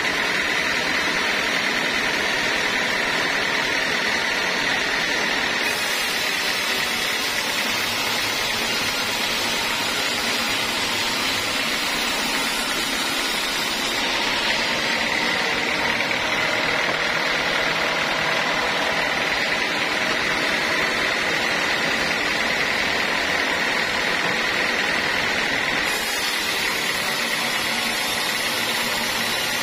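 Large sawmill band saw running steadily with a high whine over a hiss, its blade sawing teak into boat boards.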